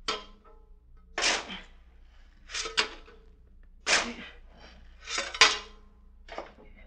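Radio-drama sound effect of coal being shovelled into a furnace: about six rough, gritty scrapes and tosses of a shovel, a little over a second apart.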